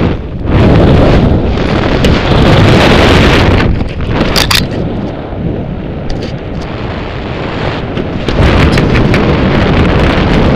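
Wind buffeting the camera's microphone under an open parachute canopy: a loud, rushing noise that swells and eases, with a brief sharp crackle about four seconds in.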